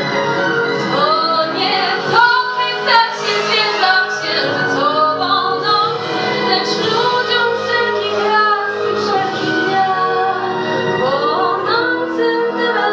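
A female voice singing long, sliding notes over an instrumental backing track.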